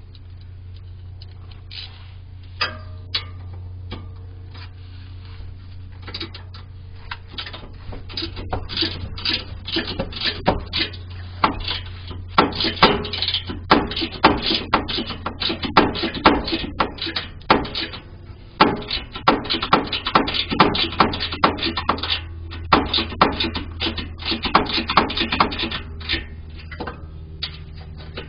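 Socket ratchet clicking in rapid runs while a 15 mm skid-plate bolt is backed out, over a steady low hum.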